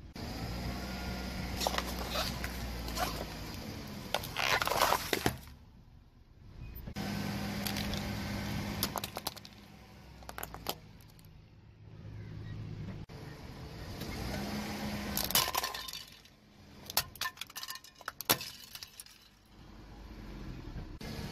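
A car creeping forward on its tyre with the engine running low and steady, while small hard plastic toys crack and snap under the wheel. The loudest breaks come about four to five seconds in, around fifteen seconds, and in a quick run of snaps a few seconds later.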